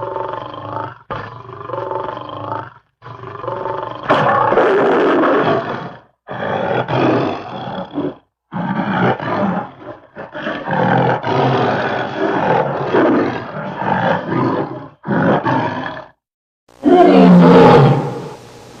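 Sound-effect cries of the Ozark howler, a folklore cryptid: a run of big animal-like calls, one after another, broken by several sudden silent gaps. The last call, about two seconds before the end, is the loudest.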